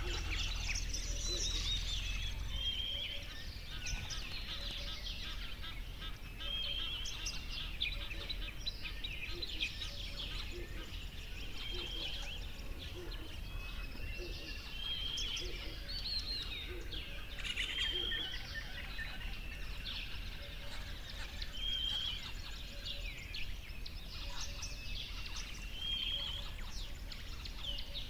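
A chorus of wild birds chirping and singing, with many short high calls and trills overlapping continuously over a steady outdoor background.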